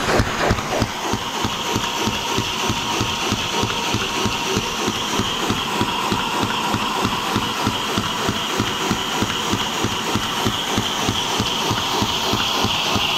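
Lego DOHC engine model running fast, its strokes making an even rhythmic clatter that quickens about a second in as it picks up speed on a little throttle. A steady hiss grows louder toward the end.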